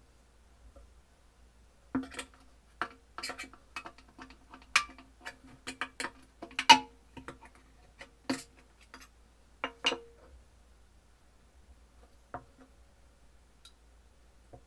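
Screwdriver prying at the lid of a metal paint tin: a run of sharp metallic clicks and knocks, some with a short ring, the loudest about halfway through, then a single tap near the end.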